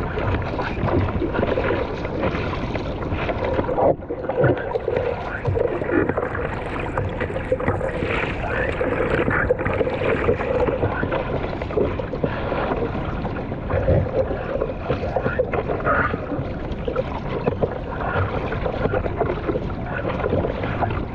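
Seawater sloshing and slapping against a surfboard as it rides the swell, with wind buffeting the microphone. The sound is a steady wash of water with many short, irregular splashes.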